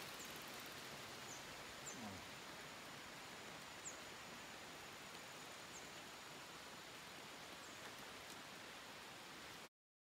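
Tropical rainforest ambience: a steady hiss with a faint high insect drone and a few short high chirps. It cuts off suddenly near the end.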